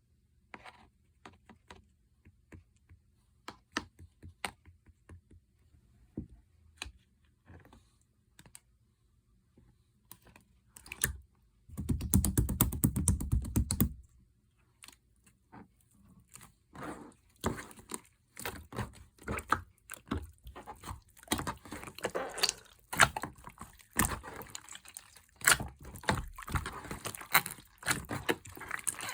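Slime being squished and kneaded by hand, making sticky clicks and pops. They are sparse for the first ten seconds, then come quickly and densely, with a loud continuous two-second stretch of squelching about twelve seconds in.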